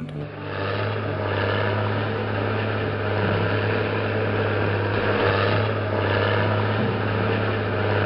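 Bulldozer diesel engine running steadily, a deep even hum under a rough mechanical rumble.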